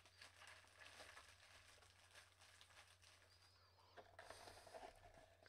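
Near silence: room tone with a steady low hum and faint scattered clicks and rustles.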